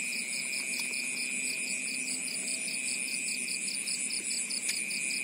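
Night insect chorus: crickets trilling in a steady high drone, with a higher chirping insect pulsing about five times a second over it.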